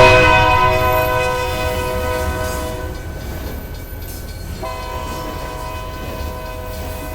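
Train horn sounding a long, steady blast that fades, then a second blast starting about four and a half seconds in, over the low rumble of the passing train.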